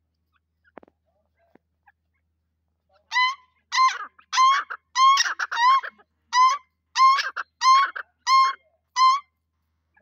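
Grey francolin calling: a run of about ten loud, ringing notes, each hooking upward at the end, repeated roughly every two-thirds of a second and starting about three seconds in. Extra notes overlap the series in the middle, as if a second bird joins in.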